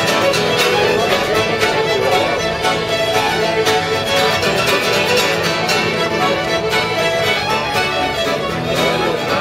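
Irish traditional session music: several fiddles play a lively tune together, with strummed acoustic guitar behind them.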